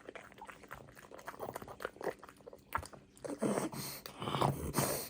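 A pug chewing and crunching cucumber: quick wet clicks of biting and chewing, with louder crunches in the second half.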